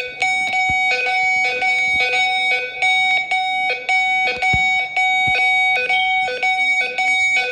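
Electronic alert tone from an emergency voice-evacuation alarm, stepping back and forth between a higher and a lower pitch in an uneven rhythm. It is the alert signal that goes with a severe-weather message ordering occupants to the tornado shelter.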